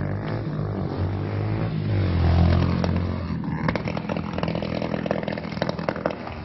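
Motorcycle engine running and revving, loudest about two seconds in. From about halfway a rapid crackling clatter joins it.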